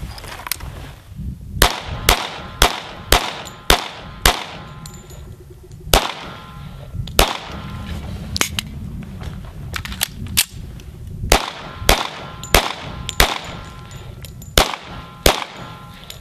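Pistol firing a string of about twenty shots in quick groups, most shots about half a second apart, with short pauses between the groups.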